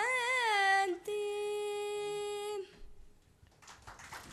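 A woman singing unaccompanied in Tamil, ending a line on the word 'shanti' (peace): a wavering note, then one long steady held note that stops about two and a half seconds in. Faint scattered clapping begins near the end.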